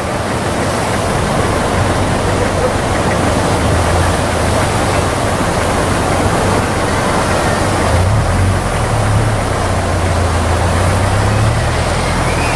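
Heavy ocean surf breaking close by: a steady, loud roar of noise, with a low rumble underneath that grows stronger about eight seconds in.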